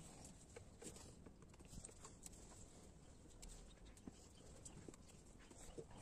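Near silence: faint background with scattered, irregular light clicks and taps.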